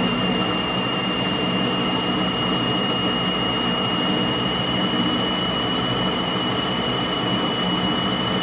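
Metal lathe running steadily while a small boring bar cuts inside the spinning workpiece, boring the lands of a bullet mold cavity. A steady high whine sits over the even running noise of the machine.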